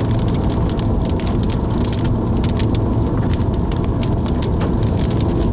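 Rain and scattered hailstones striking a moving car: irregular sharp ticks, several a second, over a steady low road rumble.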